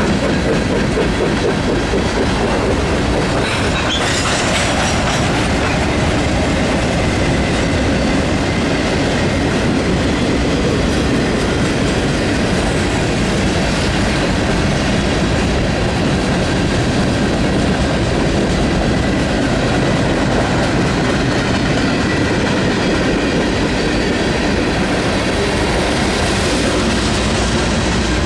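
Freight train cars rolling past at close range, their wheels clicking over rail joints in a steady rumble, with a brief brighter screech of wheel squeal a few seconds in.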